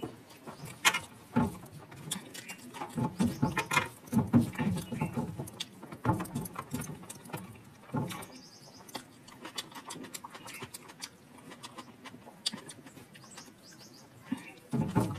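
A person chewing and munching food close to the microphone: irregular wet, crunchy mouth clicks and smacks, busiest in the first half and thinning out after about eight seconds.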